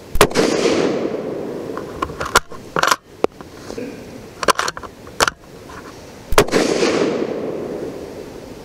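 Two shots from a Ruger American Predator Gen II bolt-action rifle in .223 Remington with its factory radial muzzle brake, about six seconds apart, each echoing away over a second or two. Between them, a few sharp metallic clicks as the bolt is cycled to chamber the next round.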